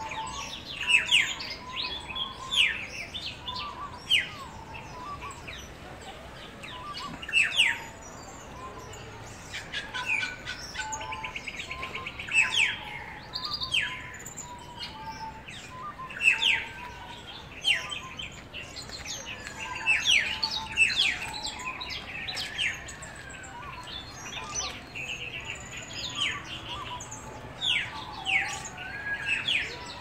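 Several small birds chirping and calling: many short, sharp down-slurred calls from different birds, a buzzy trill about twelve seconds in, and softer, lower notes repeating underneath.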